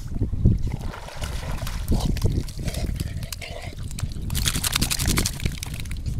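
Water splashing and dripping as an English springer spaniel swims ashore and wades into the shallows, with a burst of quick splashing a little after four seconds in. Wind rumbles on the microphone throughout.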